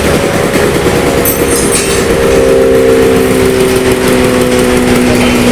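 Wood chipper for veneer running loudly with a dense mechanical din; about two seconds in, a steady hum of several tones sets in and holds.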